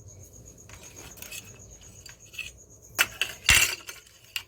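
Whole black peppercorns being crushed: small clinks, then two louder pounding strikes about three seconds in.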